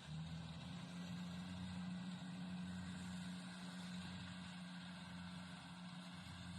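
Small engine of a rice reaper machine running at a steady, even speed.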